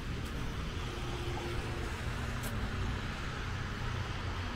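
Steady city street noise of car traffic on wet pavement: a low engine rumble under a constant tyre hiss.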